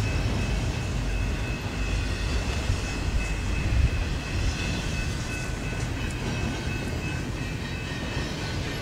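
Double-stack intermodal well cars rolling past: a steady low rumble of steel wheels on the rails with a faint thin high tone above it, and one louder knock about four seconds in.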